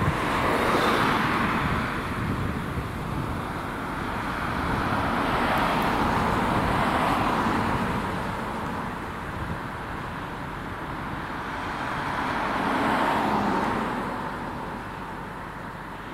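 Road traffic: cars passing by one after another, their noise swelling and fading three times.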